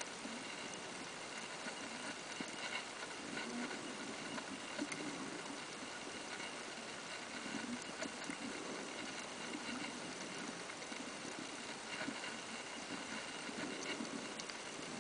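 Underwater ambience picked up by a submerged camera: a steady hiss with scattered faint clicks and soft, irregular low rumbles.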